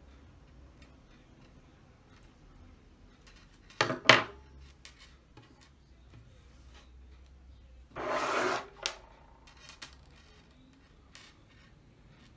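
Hand tools handled on a tabletop: metal fishing pliers set down with a sharp double clack about four seconds in, then a short scrape about eight seconds in as they are moved, with faint small ticks from handling nylon line and a hook between.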